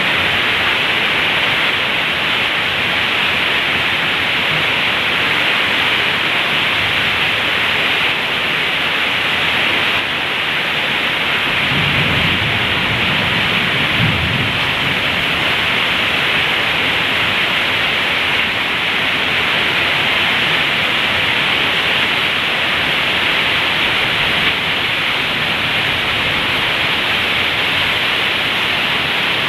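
Heavy rain falling steadily, a dense even hiss, with a brief low rumble about twelve seconds in.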